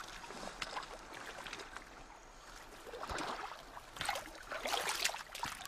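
Water splashing and trickling, with busier splashes in the second half.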